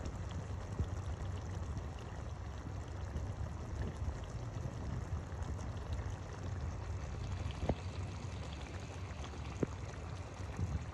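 Chicken thighs and pepper strips simmering in sauce in a pan: a steady bubbling with a low rumble under it and a few sharper pops.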